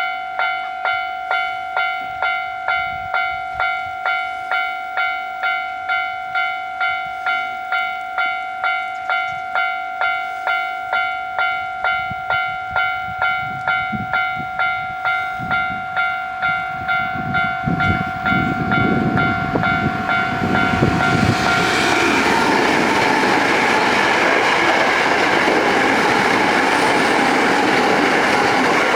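Japanese level-crossing warning bell ringing steadily, struck nearly twice a second. From about 17 seconds in, a Hankyu electric train approaches and runs over the crossing, its wheel and running noise loud to the end, with the bell still sounding underneath.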